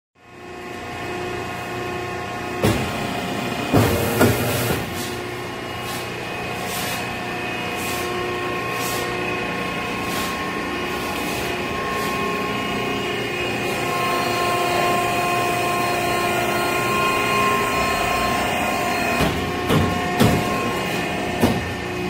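HCC 150A metal-chip briquetting machine running: a steady mechanical hum with several whining tones. Short hissing bursts come through in the first half, and a few sharp clunks about three and four seconds in and again near the end.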